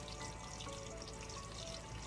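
Onions and garlic sizzling in hot oil in a wok, a fine steady crackle, under background music carrying a slow melody of single held notes.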